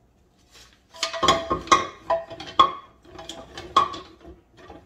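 Wooden kitchen spoons and spatulas clattering against each other and a ceramic utensil crock as they are pushed into it: two quick runs of knocks and clacks, the first starting about a second in and a second shortly before the end.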